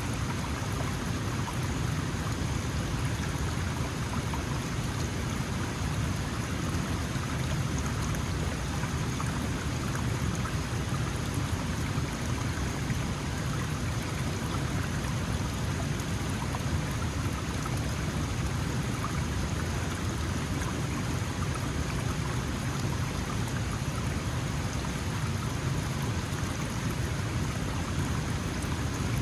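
Small mountain stream flowing, a steady, even rush of water.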